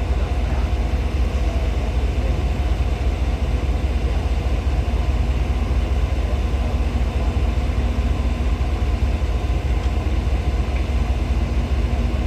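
Steady low engine rumble with no change in level; no horn is sounding.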